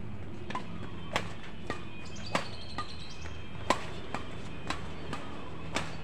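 Badminton rackets hitting a shuttlecock in a fast doubles rally: a string of sharp cracks about every half second to second, the loudest a little past halfway, over a steady low hum.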